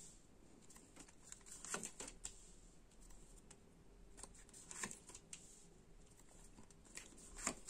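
Tarot cards being handled and laid onto a cloth-covered table: faint, scattered soft clicks and rustles, a second or so apart.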